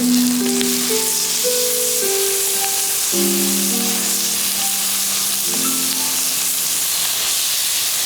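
Fish sizzling over a wood fire: a steady hiss throughout. Background music of slow, held notes plays over it.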